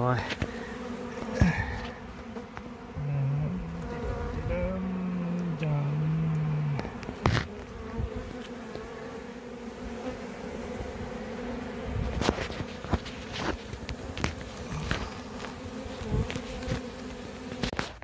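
Honeybee swarm buzzing: a steady hum of many honeybees flying around the opened hive cavity, with a few short knocks.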